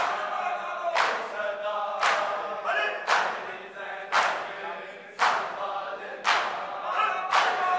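Men chanting a noha in unison, their voices cut about once a second by loud, sharp slaps of bare-handed chest-beating (matam) struck together by a large crowd.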